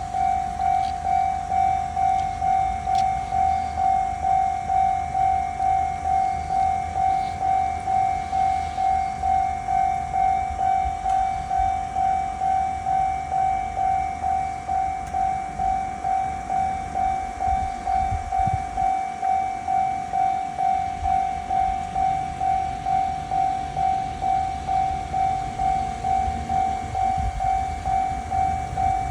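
Japanese railway level-crossing warning bell on new Toho Denki Kogyo equipment, sounding its steady "kan-kan" alarm as evenly repeated single-pitched dings, about one and a half a second, without a break. It signals that a train is approaching and the crossing is closed.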